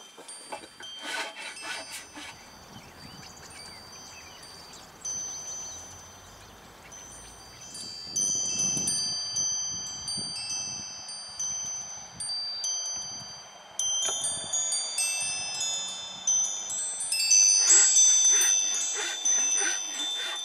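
Wind chimes ringing irregularly, clear high notes struck one after another and hanging on, with flurries of quick clinking about a second in and again near the end.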